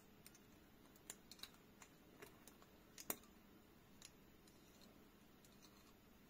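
Faint, scattered clicks and taps from a small metal spring-loaded EDC fidget toy being handled and worked in the fingers, the loudest about three seconds in.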